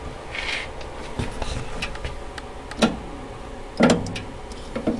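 Microwave oven running with a steady hum, while wood burning inside it gives a few sharp pops and crackles, the loudest about three and four seconds in.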